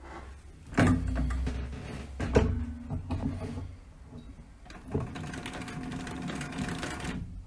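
Singer 111W152 walking-foot, triple-feed industrial sewing machine stitching leather in short start-stop runs. It starts about a second in, stops and starts again, then runs steadily for a couple of seconds in the second half and stops near the end.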